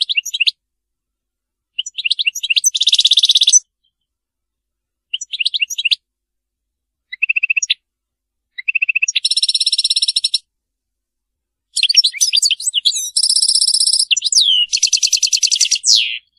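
European goldfinch singing: about half a dozen phrases of rapid, high twittering notes and fast, even trills, with short silent gaps between them. The longest and busiest phrase comes near the end.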